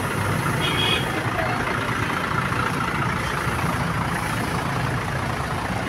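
Heavy vehicle engine, bus or truck, running steadily with a low even rumble.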